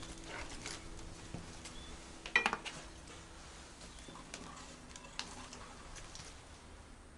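Light metal clinks and taps of hand tools being handled, with one sharp ringing clink about two and a half seconds in.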